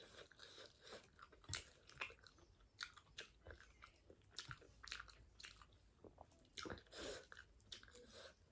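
A person chewing and biting food up close, with irregular wet mouth smacks and small crunches.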